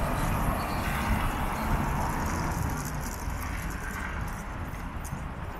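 City traffic on a busy multi-lane street: a steady wash of car engines and tyre noise from passing vehicles, easing slightly toward the end.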